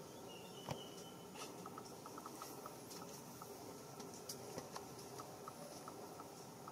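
Faint outdoor ambience: scattered small clicks and ticks over a steady high hiss, with a short thin tone and a soft thump under a second in.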